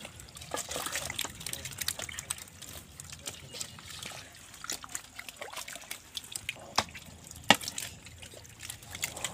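Wet mud and shallow water splashing and squelching as a mass of stranded small fish flap and a hand scoops them up with a metal bowl: many quick wet clicks and splats, one sharper splat about seven and a half seconds in.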